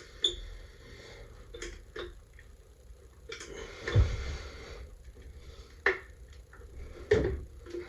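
Intermittent clicks and knocks of handling silicone caulk tubes and a bucket, with a longer scraping rustle around the middle and the strongest knocks about four and seven seconds in.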